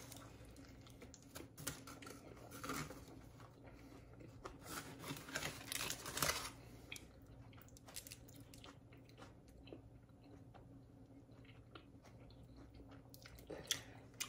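A person chewing a mouthful of burrito-bowl food (rice, corn, lettuce, tomato salsa): faint, irregular wet crunching and mouth clicks, busiest in the first half and sparser after.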